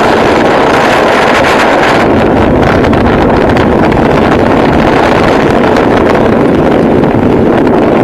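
High storm winds buffeting the microphone: loud, unbroken wind noise with a constant rumble.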